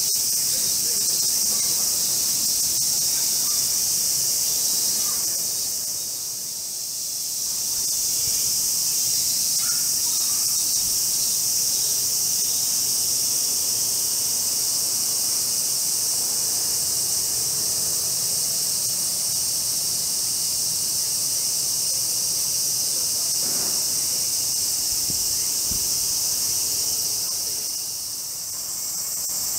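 A chorus of cicadas makes a steady high buzz, easing off briefly twice.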